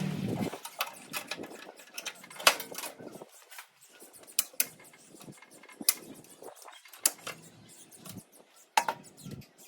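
Irregular sharp metallic clicks and knocks, a few each second, like hand tools and metal parts being handled during tractor engine work. A low steady hum cuts off about half a second in.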